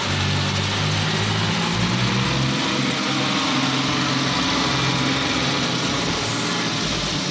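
Farm tractor's diesel engine running steadily as the tractor drags a rear blade across a grain-drying yard, its note shifting up and down a little.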